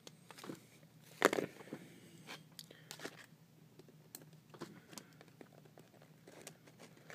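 Faint handling noise of a 1/50 scale model dozer's blade being angled to the side by hand: scattered small clicks and rustles, with one louder knock about a second in, over a faint steady hum.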